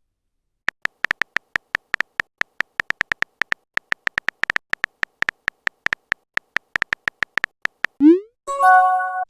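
Phone keyboard typing sound effect: short, identical electronic clicks at an uneven pace of about four or five a second. Near the end comes a short rising swoop and then a brief chord-like chime, the sound of a chat message being sent.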